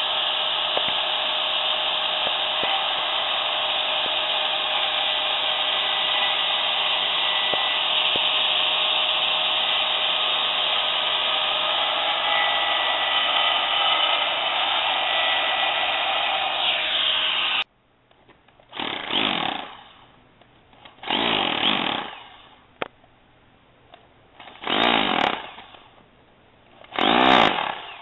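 Handheld electric power tool running steadily under load for about 17 seconds, then stopping abruptly. Four short bursts of about a second each follow, the motor spinning up and winding down each time.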